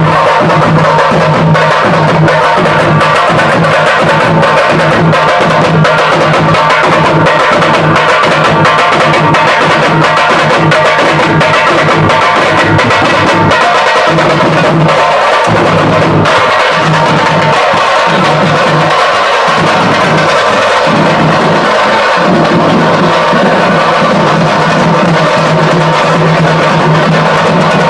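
Loud music with a heavy drum beat, played over a sound system; the bass drops back for a few seconds past the middle.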